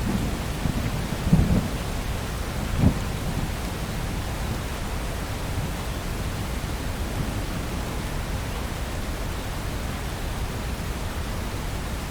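Thunder rumbling over steady rain, with two sharper claps in the first three seconds. The rumble then dies away and only the even hiss of rain remains.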